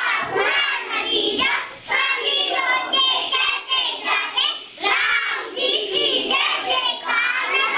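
Group of young children singing an action song together in short, rhythmic phrases.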